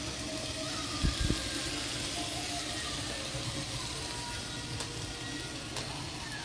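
Steady sizzle of bhaji greens frying in a stainless steel frying pan, with two low thumps a little after a second in.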